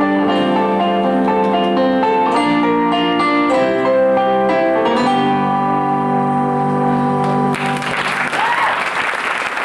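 Musical accompaniment holds the closing chords of a rock-musical number, then cuts off abruptly about seven and a half seconds in, followed by the audience applauding.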